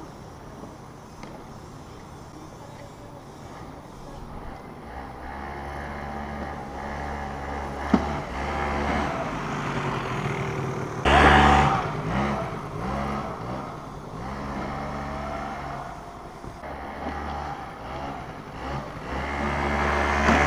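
Yamaha Mint scooter's two-stroke engine revving up and down as it is ridden, its pitch rising and falling through several surges. There is a sharp click about eight seconds in and a loud burst of noise about eleven seconds in.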